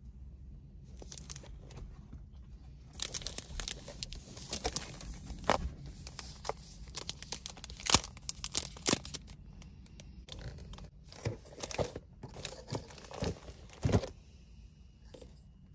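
Paper-and-foil wrapper of a dark chocolate bar crinkling and tearing as it is handled, in irregular crackles and snaps that pick up about three seconds in.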